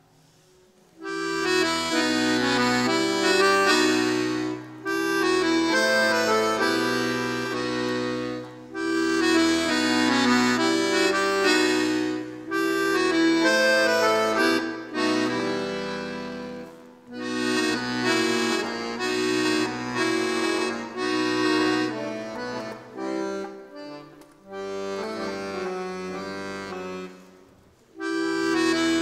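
Piano accordion playing a lively solo piece, with treble chords over stepping bass notes, in phrases separated by short breaks. It starts about a second in and pauses briefly shortly before the end, then resumes.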